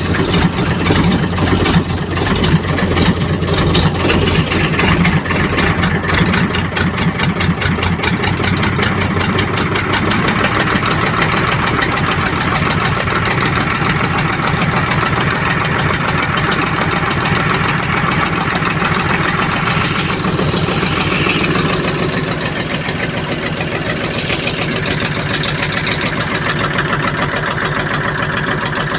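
Hino H07D six-cylinder diesel engine of a fast river-taxi boat running steadily under power, picking up speed about four seconds in and then holding its pace.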